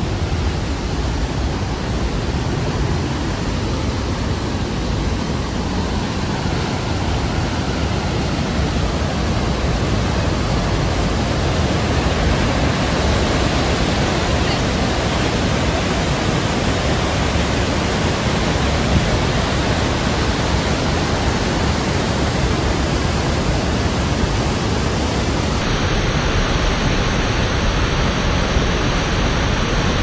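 The Rhine Falls, a river waterfall 150 m wide and 23 m high, heard up close: a loud, steady rush of falling and crashing water with no breaks.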